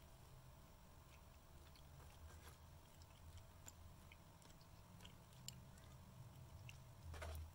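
Quiet eating sounds: faint chewing and small clicks of a plastic spoon scooping rice on a paper food wrapper, over a faint steady hum, with one brief louder sound near the end.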